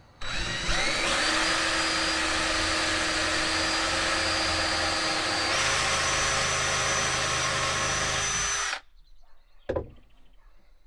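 Cordless drill boring into a wooden bed-frame bar, running for about eight and a half seconds. Its motor whine rises as it spins up, steps to a higher pitch about halfway through, and cuts off suddenly. A single click follows about a second later.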